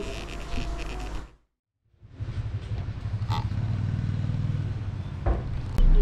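Motor vehicle engine running with a steady low hum. It follows a brief cut to silence about a second and a half in.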